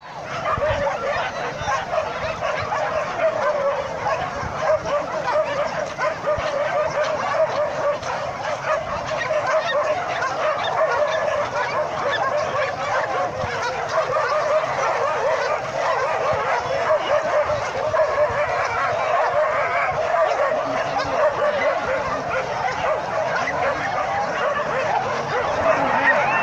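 Many dogs barking and yelping at once in a continuous, overlapping din.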